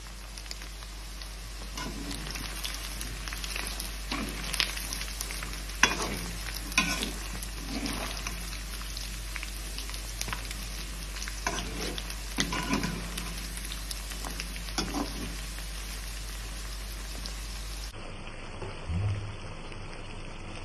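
Battered chicken pieces deep-frying in hot oil in a metal kadai, a steady sizzle. A metal slotted spoon repeatedly scrapes and clinks against the pan as the pieces are turned and lifted out. Near the end the sizzle drops away to a quieter sound with a few soft thuds.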